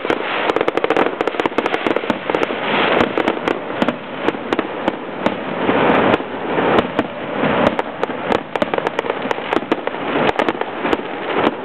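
Aerial fireworks going off in a dense, continuous barrage of rapid crackling and popping, with no break.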